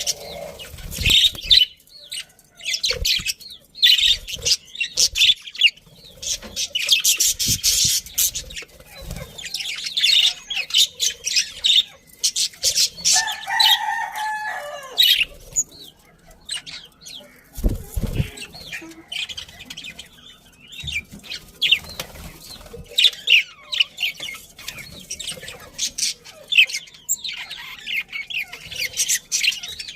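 A flock of budgerigars chirping and chattering in quick, overlapping bursts. About 13 seconds in, a longer, lower call of roughly two seconds stands out. A few low thumps are heard, one near the start and one about 18 seconds in.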